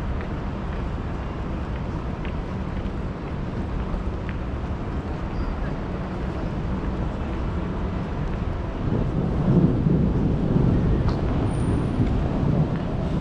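Night city street ambience: a steady low rumble of traffic and street noise, growing louder from about nine seconds in.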